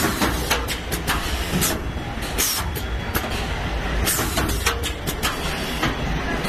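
Vertical form-fill-seal packing machine for cooking oil pouches running: a steady mechanical rumble with frequent irregular clicks and clacks.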